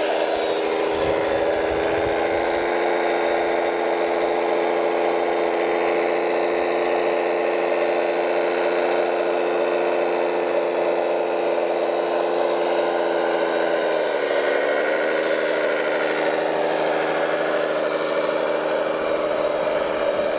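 Radio-controlled construction machine's motor running with a steady hum of several tones, dipping briefly in pitch about two thirds of the way through as it comes under load or is throttled, then steadying again.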